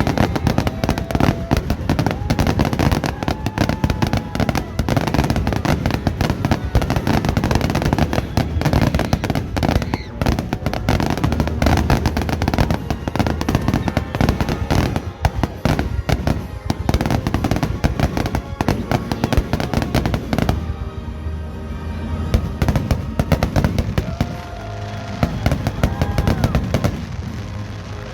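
Fireworks display: a dense, continuous barrage of bangs and crackles that thins out for a few seconds about two-thirds through, with music playing underneath.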